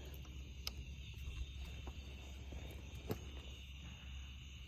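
Quiet background with a steady high-pitched hum and a low hum underneath, broken by two faint clicks, one about a second in and one about three seconds in.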